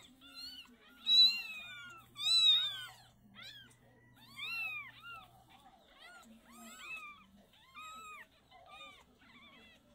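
Young kittens mewing over and over: short, high-pitched cries that rise and fall, one or two a second, the two loudest about one and two and a half seconds in.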